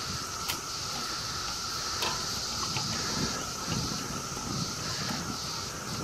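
A chorus of many cicadas calling together: a steady, high-pitched drone with a constant lower whine beneath it.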